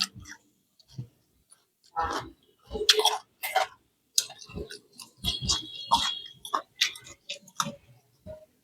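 A person chewing and biting food close to the microphone: irregular crunches and mouth sounds with short pauses between them.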